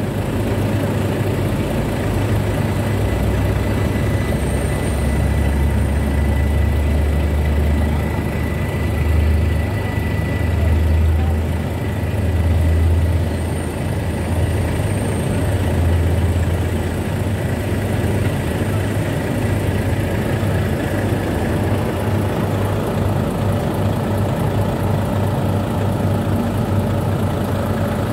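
Diesel engine of a train idling with a steady low rumble, swelling and easing a few times in the middle.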